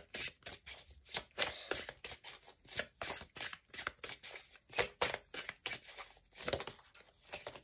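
Tarot cards being shuffled and handled by hand: a quick, irregular run of card clicks and rustles.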